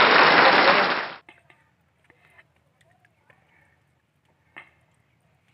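A loud, even rush of noise that cuts off abruptly about a second in, followed by near silence with a few faint clicks, one a little louder past the middle.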